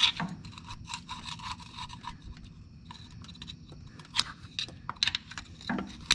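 A small screwdriver scraping and picking at the greasy brake actuator rod seal bore on a Massey Ferguson MF30E's rear housing, in short, irregular scratches and clicks of metal on metal.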